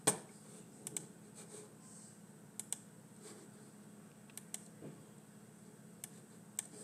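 Irregular clicks and key taps from a computer mouse and keyboard, about a dozen short sharp ones, the loudest at the very start, over a faint steady hum.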